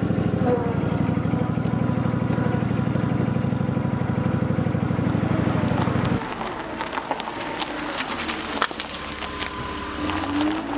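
Riding lawn mower's small gasoline engine running steadily, now firing again after its dried-out fuel pump was wetted with fresh gasoline. About six seconds in, the engine sound cuts off abruptly and a quieter sound with scattered clicks follows.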